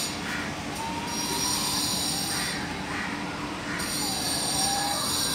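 A steady, shrill, high-pitched drone made of several layered tones. A faint sliding whistle comes in about a second in and again near the end.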